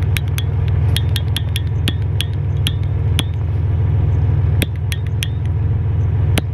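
Trigger-start propane hand torch's igniter clicking over and over, two to four sharp snapping clicks a second, without the torch lighting. Under it, the steady low hum of a car engine idling as it warms up.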